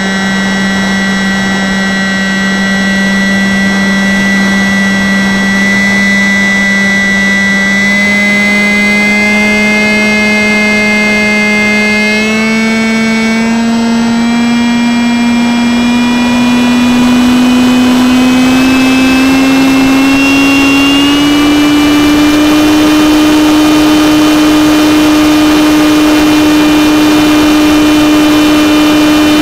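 Electric motor and pusher propeller of a Stryker RC flying wing, heard up close from an onboard camera: a loud steady whine that climbs slowly in pitch and levels off about two-thirds of the way through, over a rush of air.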